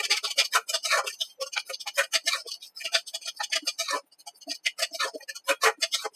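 Metal spatula scraping and knocking against a metal kadhai in quick, uneven strokes as whole-wheat flour is stirred and roasted in ghee for halwa. There is a short pause about four seconds in.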